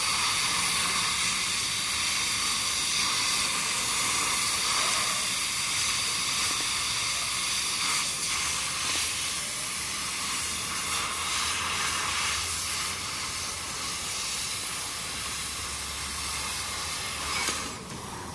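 Loud, steady hiss of a metal-cutting tool working the steel pieces for the seat-frame repair. It cuts off about a second before the end.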